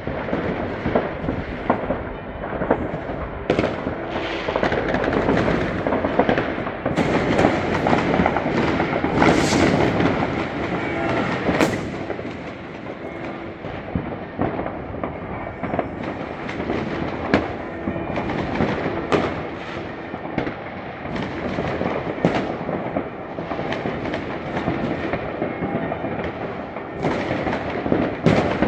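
New Year's Eve fireworks: a dense, unbroken barrage of overlapping bangs and crackling, at its busiest about a third of the way in.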